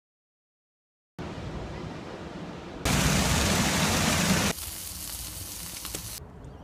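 Plaza fountain jets splashing onto wet pavement: a loud, steady rush of water that starts suddenly about three seconds in and cuts off a second and a half later. Before it a softer hiss, and after it a quieter hiss with a few faint clicks as the montage cuts between clips.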